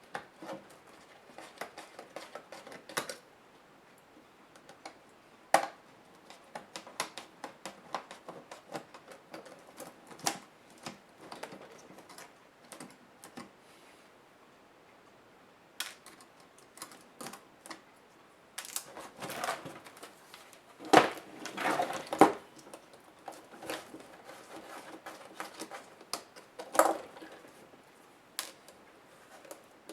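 Laptop parts being handled and taken apart by hand: irregular clicks, taps and plastic rattles, with a busier, louder run of knocks about twenty seconds in.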